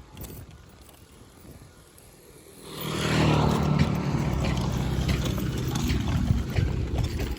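A motor vehicle's engine, loud and close, comes in suddenly about three seconds in and runs on until it cuts off sharply near the end.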